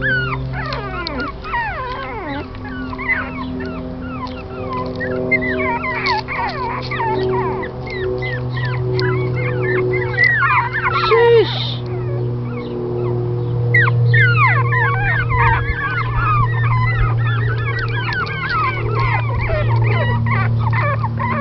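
Young Shih Chon puppies yipping and squeaking, many short high cries overlapping one after another, with a steady low hum underneath.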